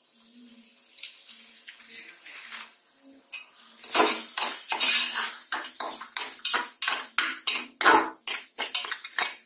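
Metal spatula scraping and stirring a thick masala in an aluminium pressure cooker, over a faint sizzle. The stirring starts about four seconds in as a quick run of scrapes against the pot, about three strokes a second.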